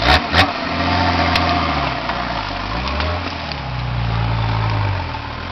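Nissan Patrol GR Y60 turbo-diesel engine revving up and down under load as the 4x4 crawls over rough ground, with two sharp knocks right at the start.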